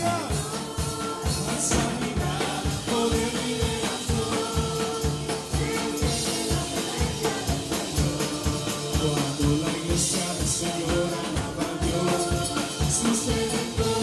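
A live church praise band playing: several singers holding long sung notes over a drum kit keeping a steady beat, with electric guitar.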